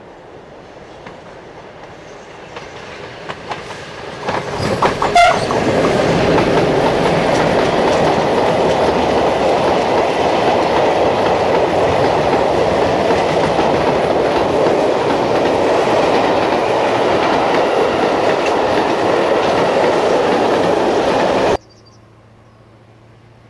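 Freight train approaching and passing close by. It grows louder as the locomotive nears, with a brief wavering tone as it passes about five seconds in, then a steady rumble and clickety-clack of the wagon wheels over the rail joints. The sound cuts off abruptly near the end.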